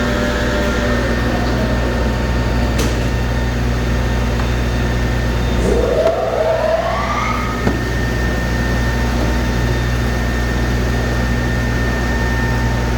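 Industrial machinery running with a steady low hum, and a whine that rises in pitch for a couple of seconds about midway through.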